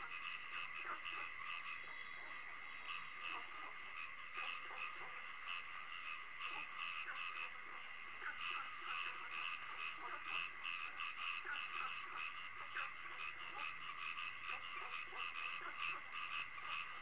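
Night ambience of frogs calling in a chorus, short croaks repeating two to three times a second over a steady high-pitched ringing.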